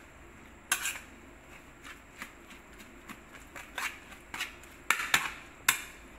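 A metal utensil tossing dressed, blanched fern shoots on a ceramic plate: irregular light clicks and scrapes as it knocks against the plate, with a few sharper taps about five to six seconds in.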